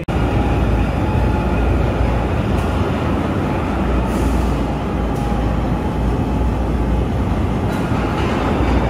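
Loud, steady rumbling noise of a heavy vehicle or machinery running, with a deep low rumble under a dense roar and no clear rhythm.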